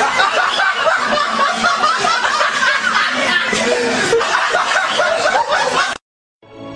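Hard, continuous laughter that cuts off abruptly about six seconds in; after a brief silence, music starts near the end.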